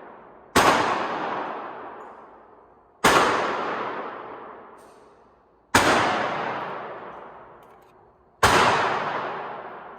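1911 pistol fired four times in slow, steady succession, about two and a half seconds between shots, each shot followed by a long echo that dies away over about two seconds.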